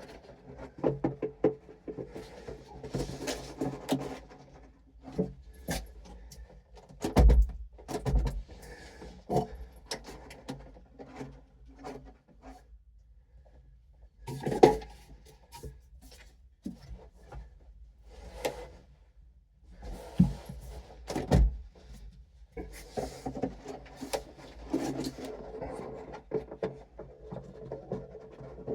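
Knocks, rubs and handling clatter of hands-on work in a car, with a few heavy low thuds about seven, eight, twenty and twenty-one seconds in, over faint background music.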